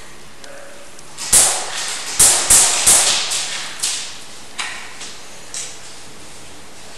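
Sharp, echoing cracks of an indoor airsoft skirmish: four loud ones close together in the first three seconds, then three fainter ones spaced about a second apart.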